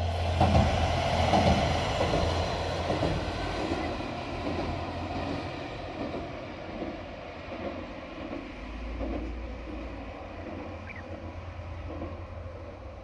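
JR Shikoku diesel railcar passing over a level crossing, its wheels clattering over the rail joints. It is loudest in the first couple of seconds, then the clatter and engine noise fade as it moves away.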